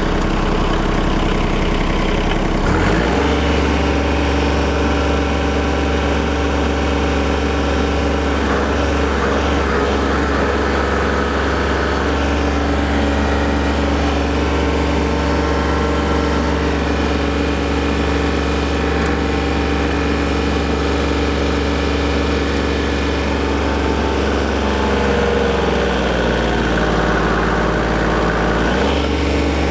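Kubota LX-series compact tractor's diesel engine running under heavy load, straining against a chained load cell in high range, first gear. About three seconds in the engine settles into a heavier, lower note and holds it steadily, easing back near the end as the pull comes off.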